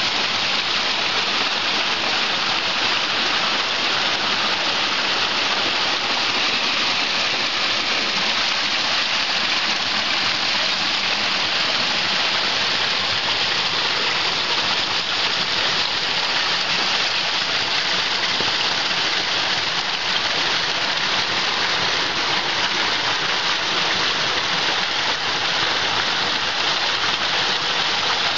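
Steady rush of stream water running over and between boulders, an even hiss that does not change.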